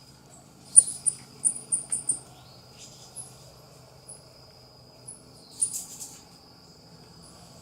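Coati giving short, very high-pitched chirps: a quick run of about five, then scattered single chirps and a brief cluster near the end, over a steady high insect drone.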